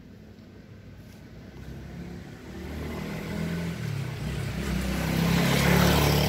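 A motor vehicle's engine approaching, growing steadily louder and loudest near the end as it comes close.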